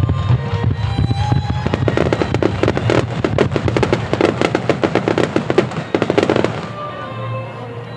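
Starmine fireworks display: a dense, rapid run of popping and crackling from bursting shells, thickest from about two seconds in and tailing off shortly before the end. Music for the show plays underneath.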